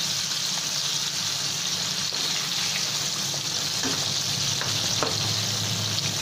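Battered mandeli fish deep-frying in hot oil, a steady sizzle, with a few faint ticks of a slotted spoon turning them about 4 and 5 seconds in.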